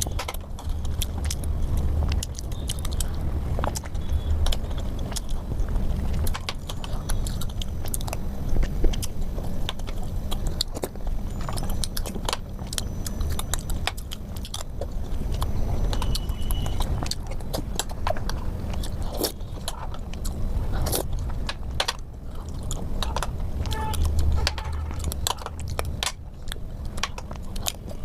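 Close-miked eating: chewing and wet mouth smacks, with many sharp clicks and crunches and a low rumble underneath.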